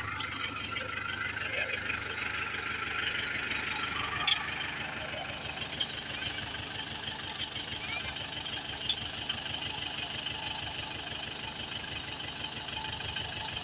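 Tractor engine running steadily, with a couple of sharp clicks about four and nine seconds in.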